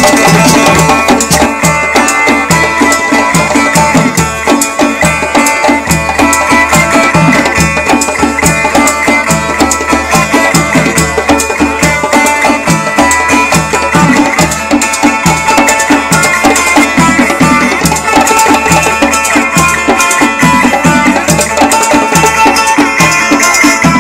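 An ensemble of African-style hand drums playing a steady, driving rhythm without a break.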